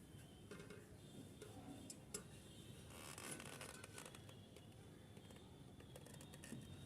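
Near silence, with faint scrapes and a few light clicks of handling, the busiest stretch of scratchy rustling about three seconds in.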